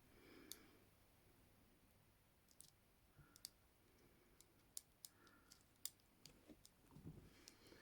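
Faint, irregular metallic clicks of a bent paperclip being worked in the keyway of ASP Model 100 handcuffs, trying to disengage the double lock.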